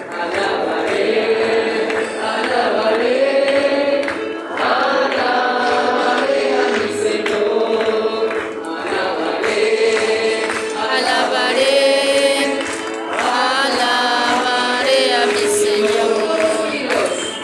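Many voices singing a hymn together, in phrases a few seconds long with short breaks between.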